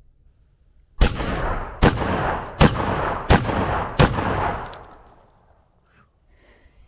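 Five gunshots, about one every three-quarters of a second, each followed by a rolling echo that dies away after the last.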